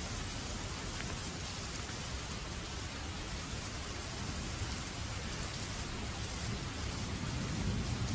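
Steady, even rain falling, with a low rumble swelling slightly near the end.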